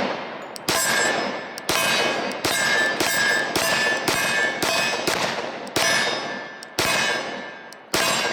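Glock 20 Gen 4 10mm pistol firing a string of eleven shots at an uneven pace, about one every half second to a second. Each shot is followed by a ringing tone that dies away before the next.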